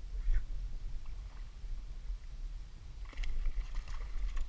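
A hooked bass splashing and thrashing at the water's surface in a quick cluster of splashes for about a second near the end, over a steady low rumble.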